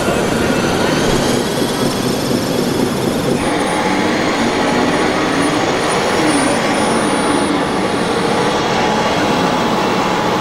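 1/14-scale RC construction machine running, its electric motors and gearing driving it. The sound changes abruptly about three and a half seconds in, and a pitch rises and falls near the middle.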